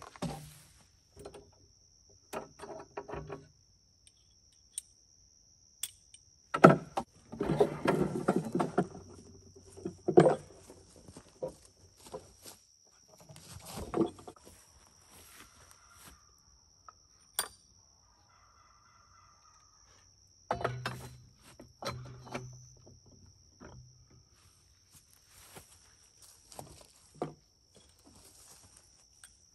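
Handling noise of heavy equipment: clunks, knocks and scrapes of wood and steel as a wooden weight box is lifted off a tractor's three-point hitch receiver and a vise mount is slid into it. The loudest stretch is a dense run of knocks and scraping about 7 to 10 seconds in, with another group of clunks a little past the 20-second mark. A thin steady high tone runs underneath.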